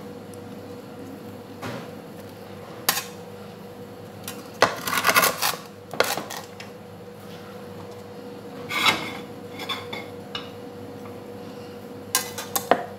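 Slotted metal skimmer scraping and clinking against a metal pan while scooping cooked rice. The knocks are scattered, with a cluster about five seconds in, another around nine seconds and several near the end.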